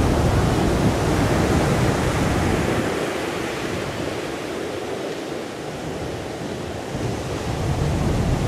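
Ocean surf breaking and rushing in, a continuous roar of heavy swell; it eases through the middle and builds again near the end.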